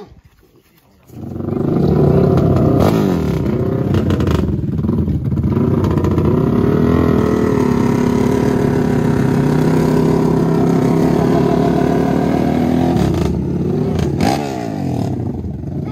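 ATV engines at full throttle in a street drag race. The engines break in suddenly about a second in and stay loud, their pitch climbing and dropping repeatedly, then ease somewhat near the end.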